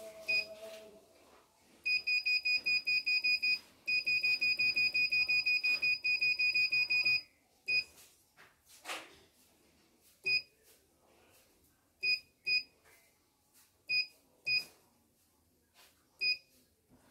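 CNY portable embroidery machine's control panel beeping as its touchscreen buttons are pressed. Single short high beeps come with two fast strings of rapid beeps about two and four seconds in, then scattered single beeps.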